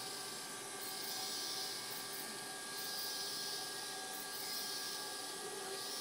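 Tropical rainforest dawn chorus: a shrill insect hiss that swells and fades about every two seconds, over several steady high tones and faint repeated clicks.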